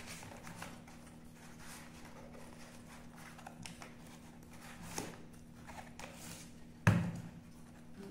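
Cardboard retail box being handled and opened: flaps and tabs rustling and clicking. Near the end the box knocks sharply onto the desk.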